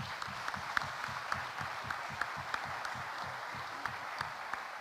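Audience applauding steadily, with a few louder single claps standing out.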